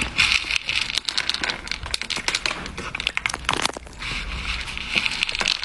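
A cat crunching dry kibble from a plastic bowl while scooping pellets with its paw: a dense, rapid run of small crunches and clicks.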